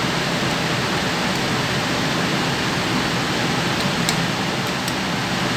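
A steady rushing background noise, with a few faint small metallic clicks about four seconds in as circlip pliers work a retaining clip onto the splined shaft of a washing-machine gearbox.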